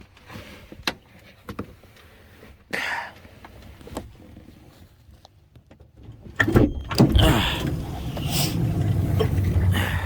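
Chrysler Town & Country minivan's sliding door opened from the exterior handle: a few light clicks, then about six and a half seconds in a clunk as the latch releases and the power sliding door's motor runs steadily. The handle works again now that the cable's ball end is snapped back into its channel.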